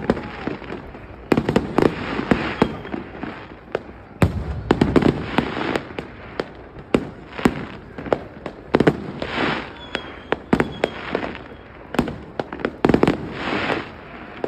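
Aerial fireworks display: a continuous run of sharp bangs from bursting shells, with bouts of dense crackling every few seconds.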